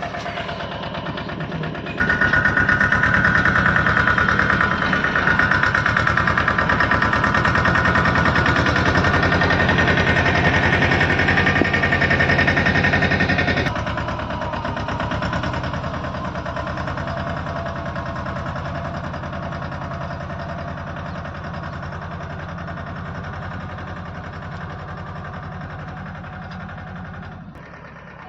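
Mahindra 24 HP tractor's diesel engine running steadily while pulling a potato digger. It gets much louder about two seconds in, drops back sharply around halfway, and then slowly fades.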